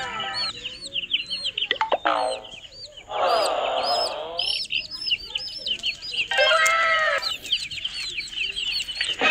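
Baby chicks peeping in a run of quick, high chirps, with a hen clucking louder and lower a few seconds in and again near the end.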